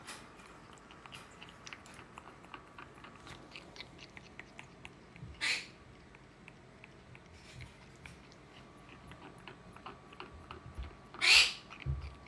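Pet parrot nibbling and clicking with its beak in small faint clicks, broken twice by a short harsh shriek, the second one louder.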